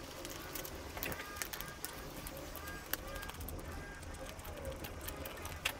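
Small clicks and taps from handling wiring connectors and parts, two of them sharper about three seconds in and near the end, with birds chirping in the background.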